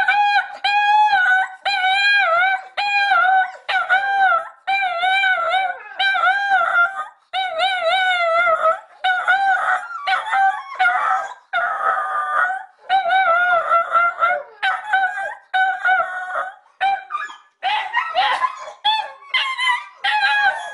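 Small black-and-tan dog howling: short wavering yowls repeated over and over, a little more than one a second, turning more ragged and broken near the end.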